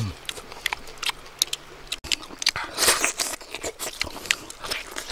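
Close-up eating sounds: crisp crackling clicks and mouth noises of people biting and chewing pieces of cooked fish, with a denser crunch about three seconds in.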